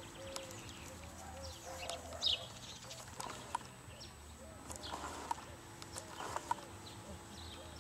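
Small birds chirping, short high notes falling in pitch, over a row of short, evenly repeated lower notes and a few light clicks.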